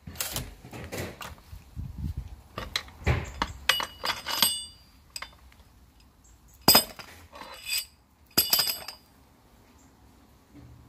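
Metal clinks and clanks of coil-spring compressor clamps and their threaded rods being taken off a car's front strut spring. A string of small knocks comes first, then two louder ringing clanks in the second half.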